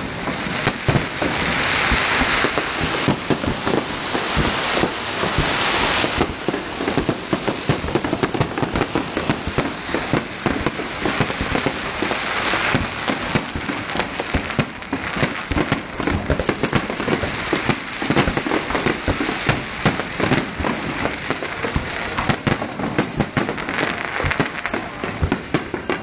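Fireworks display: a dense, continuous barrage of bangs and crackling, with stretches of crackling hiss.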